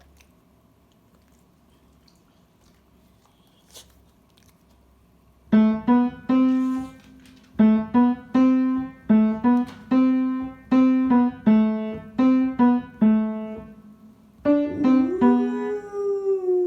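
Piano notes played one at a time in a simple tune, starting after about five quiet seconds. Near the end a dog howls along over the piano, one long howl that rises and then bends down in pitch.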